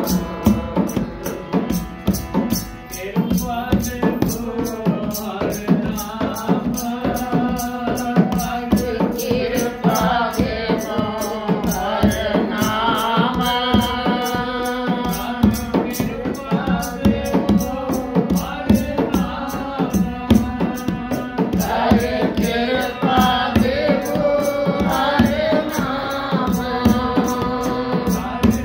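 Harmonium playing with a voice singing devotional chant, in the style of Sikh kirtan, over a steady hand-drum beat.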